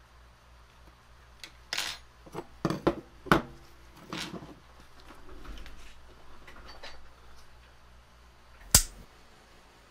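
Aluminium heatsink with stepper drives screwed to it being handled on a workbench: a run of clicks and knocks in the first few seconds, some softer handling noise, and one sharp click near the end.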